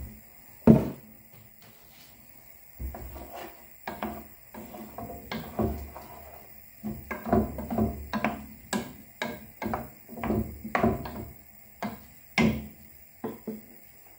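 Kitchen clatter: a run of irregular knocks and bumps, with one sharp knock about a second in and a denser stretch through the middle.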